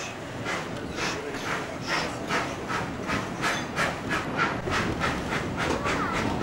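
Narrow-gauge steam locomotive pulling away, its exhaust beating in a regular chuff that quickens from about two to about three beats a second as the train gathers speed.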